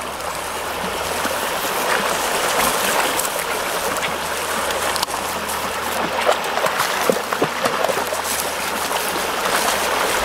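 Shallow rocky stream running and trickling over stones, a steady sound of flowing water with a few short ticks over it.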